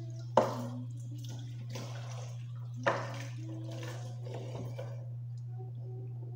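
Dishwashing at a kitchen sink: running tap water with two sharp knocks of dishes, about half a second in and again near three seconds. The water stops about five seconds in, and a steady low hum runs underneath.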